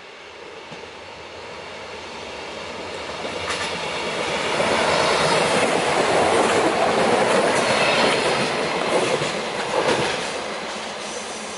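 A eurobahn Talent multiple unit comes out of a tunnel and runs past close by, its wheels rumbling on the rails with a few sharp clacks over rail joints. It grows louder over the first few seconds, is loudest for about five seconds as it passes, and drops back near the end.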